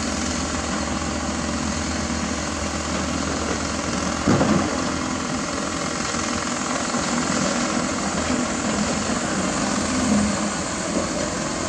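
Diesel engines of hydraulic excavators (Doosan DX225LCA and Hyundai Robex 210LC) running steadily while loading dump trucks. About four seconds in there is a loud, brief crash of rock dropped into a steel dump-truck bed, with smaller knocks near the end.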